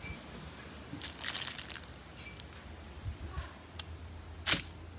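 Aluminium foil parcels crinkling as they are handled and settled on a barbecue grill plate, with a few small clicks and one sharp knock near the end.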